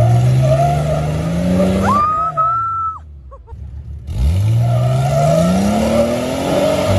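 Lifted Jeep Cherokee's engine revving hard on a rock climb, its pitch rising over the first two seconds, with a high squeal of tires spinning on the rock about two seconds in. The sound drops away briefly about three seconds in, then the engine revs climb again. The Jeep has no front drive shaft and drives on its rear wheels only, so they spin for grip.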